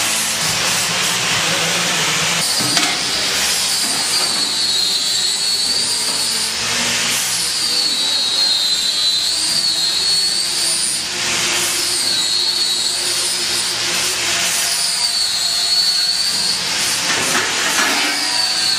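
Machinery in an engineering workshop with a hydraulic press brake in use, running steadily: a loud rushing noise with a high whine that wavers up and down in pitch.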